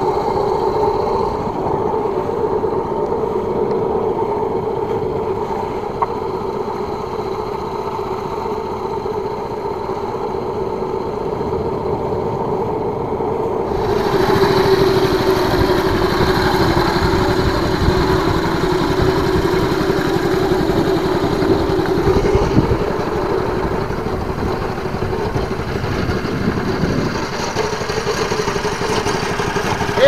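A fishing boat's engine running steadily with an even hum. About halfway through, a louder rushing hiss joins it.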